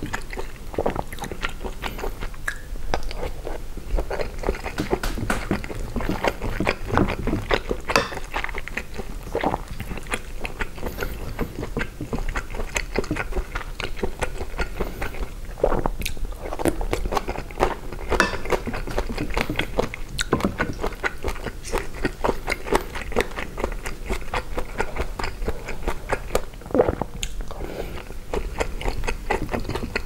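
Close-miked chewing and biting of gumbo with rice, shrimp and sausage: a dense, steady run of short mouth clicks and smacks.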